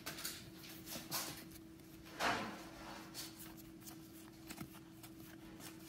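A stack of Panini Mosaic basketball cards being flipped through by hand: soft slides and light clicks of card against card, with one louder swish about two seconds in, over a faint steady hum.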